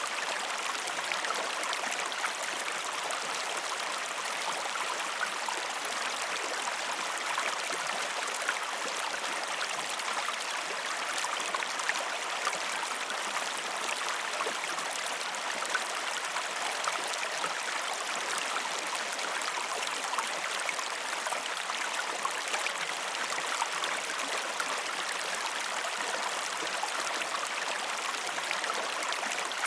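River water flowing: a steady rushing with many small splashes and gurgles.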